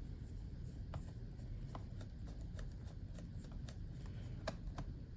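Faint, scattered light clicks and ticks of a small screwdriver tightening a laptop screw, over a low steady hum.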